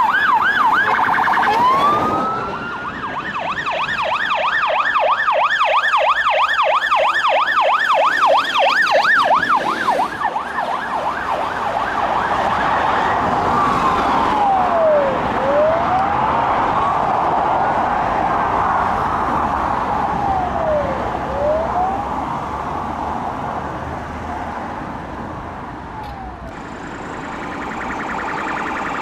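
Police car sirens passing. A fast yelp runs for the first ten seconds, then a slow wail rises and falls as a marked car goes by and fades away, and another siren starts near the end, with road traffic underneath.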